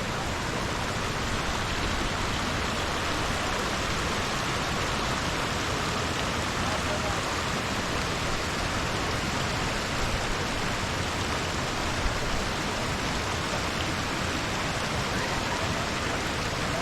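Running spring water rushing steadily, an even hiss with no breaks.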